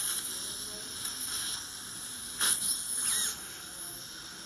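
Dental suction tube drawing air and fluid from the mouth: a steady hiss, with a louder slurp about two and a half seconds in and a short squeak.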